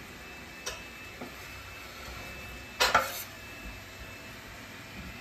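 Wooden chopping board and knife knocking and clattering against a steel cooking pot, a sharp double knock about three seconds in, as diced onions are tipped off the board. A faint steady hiss lies underneath.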